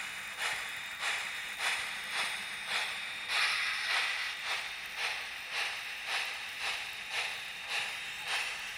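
Steam exhaust chuffs played by a QSI sound decoder in an HO-scale model steam locomotive, through its small on-board speaker. They come in a steady, even rhythm of about two a second over a continuous hiss, as the engine runs at a slow, constant speed.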